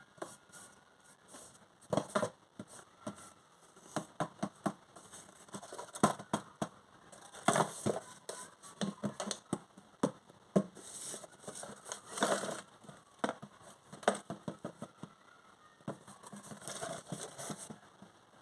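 Packaging being handled and torn open: irregular crinkling, crackling and sharp clicks, with louder rustling bursts about seven and a half and twelve seconds in.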